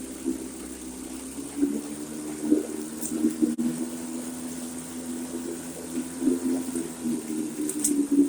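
Steady churning, gushing water with a low, steady hum underneath, from a 1964 Johnson 3 hp outboard running in a water-filled test tank.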